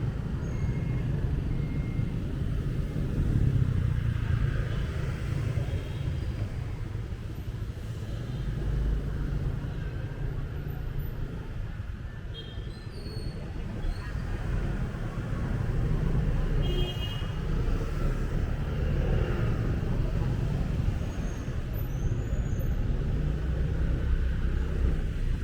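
Motorbike riding through city traffic: a steady low rumble of engine and road noise that swells and eases as it goes.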